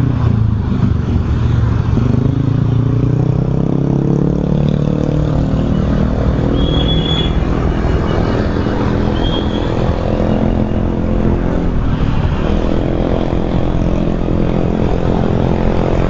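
Motorcycle engine running while riding in traffic, its pitch falling, climbing and dipping with throttle and gear changes. Two short high tones sound about seven and nine seconds in.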